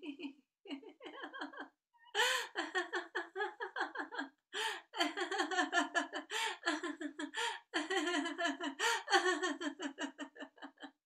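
A woman laughing heartily in rapid, pulsing ha-ha bursts: deliberate laughter-yoga laughter during a laughter sprint. It is lighter at first and grows louder after a short pause about two seconds in.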